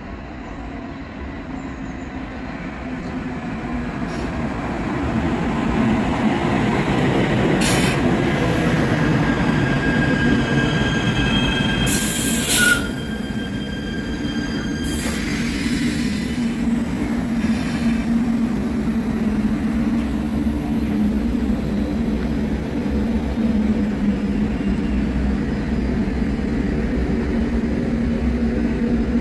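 KVB light-rail (Stadtbahn) train approaching and pulling into the platform, growing louder over the first six seconds. It gives a high wheel squeal as it slows from about ten to sixteen seconds in, with a brief sharp burst of noise about twelve seconds in, then a steady low hum as it stands.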